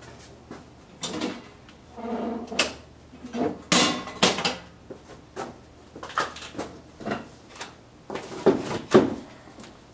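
Irregular knocks, clunks and scrapes, like a door or panel being handled, with a short squeak about two seconds in; no motor is running.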